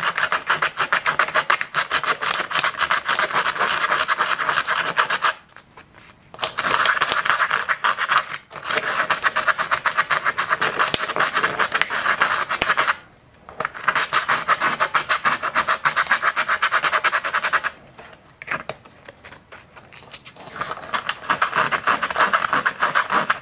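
Coarse 100-grit sandpaper rubbed rapidly back and forth by hand over the servo mounting base of a molded composite glider wing, scuffing it before it is glued. The rasping comes in runs, broken by short pauses.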